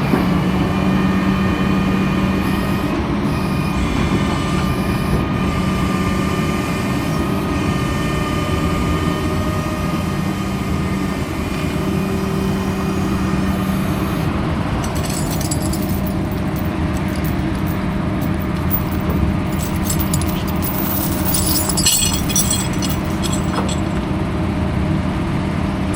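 A motor vehicle engine running steadily at idle, with a run of short metallic clicks and rattles in the second half.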